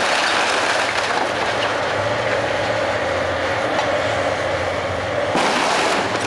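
Komatsu hydraulic excavator running while its bucket tears into a wood-frame house, with timber cracking and debris clattering. A louder rush of breaking and falling debris comes near the end.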